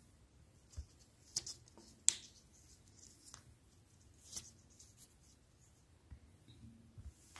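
Fingers scraping ground chocolate and candy paste out of a meat grinder's head: faint rubbing and squishing with a few sharp little clicks, the loudest about two seconds in.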